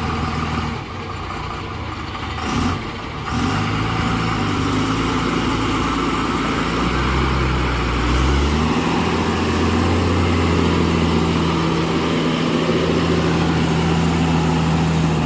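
Heavy diesel engine running under load. Its note dips about seven seconds in, then steps up a moment later and holds steady.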